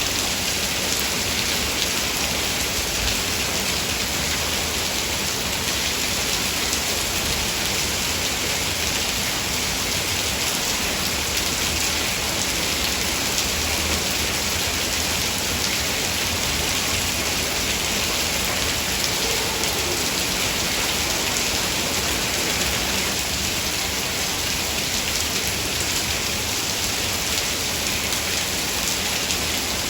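Heavy rain falling steadily, an even hiss of countless drops with no breaks or single loud hits.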